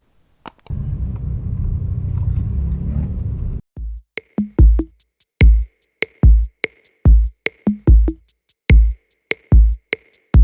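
Background music: after about three seconds of low, noisy sound that cuts off suddenly, an electronic beat starts, with deep booming kick drums roughly every 0.8 s and sharp claps or snares between them.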